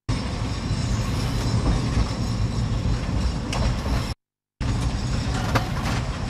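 Tram running along worn track, heard on board: a steady rumble and rattle of wheels and body with a few sharp clanks. The sound cuts out for about half a second a little after four seconds in.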